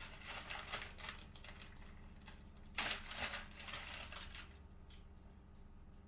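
Rustling and light clicking of things being handled at an open refrigerator, in short bursts, with the loudest rustle about three seconds in.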